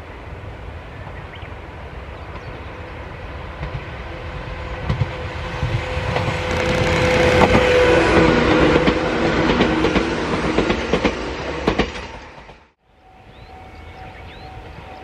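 Sangi Railway electric train, set 803F, passing close by: its running noise builds as it approaches and peaks about eight seconds in, with wheels clacking over rail joints. The sound cuts off suddenly about thirteen seconds in.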